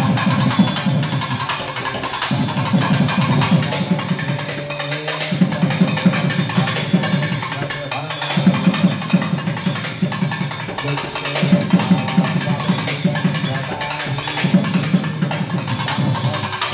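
South Indian barrel drums, a thavil with a second hand-played barrel drum, playing fast interlocking rhythms together in phrases broken by short pauses.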